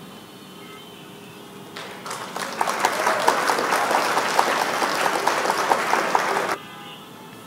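Recorded crowd applause sound effect, marking the reveal of the answer: it starts about two seconds in, swells quickly and cuts off suddenly about four and a half seconds later.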